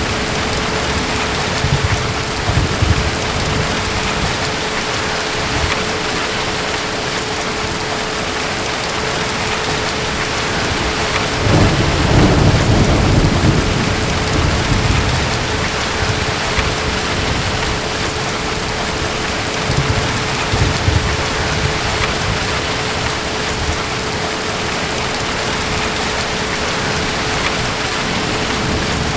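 Steady heavy rain with rolls of distant thunder. The loudest rumble comes about twelve seconds in and lasts a few seconds, with smaller rumbles near the start and about twenty seconds in.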